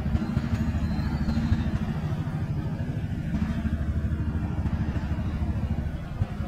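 Small motorbike engine running steadily at low speed, close by.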